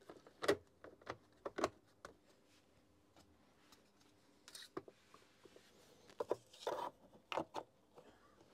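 Hands handling and fitting the plastic switch panel and handle housing of a Makita UD2500 garden shredder: an irregular scatter of light plastic clicks, knocks and scrapes.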